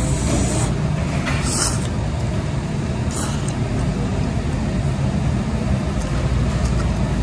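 A steady low background rumble, with short slurps as a mouthful of noodles is sucked in, about a second and a half in and again near three seconds.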